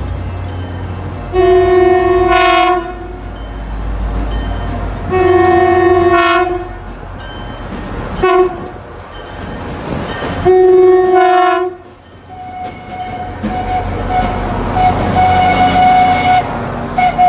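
Shore Line East diesel locomotive's multi-chime air horn sounding the grade-crossing sequence: long, long, short, long. The train then rolls past close by.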